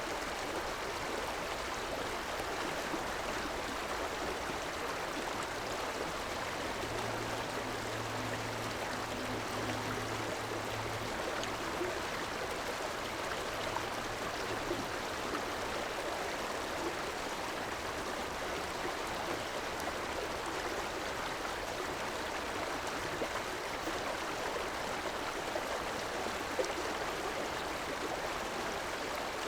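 River water flowing and rushing steadily over rocks, an even watery roar. A faint low hum joins it for a few seconds about a quarter of the way in.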